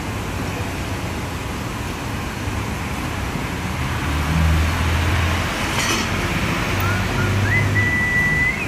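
Steady rumble of vehicle and traffic noise, with a single knock about six seconds in and a whistle-like tone that steps up in pitch and then holds near the end.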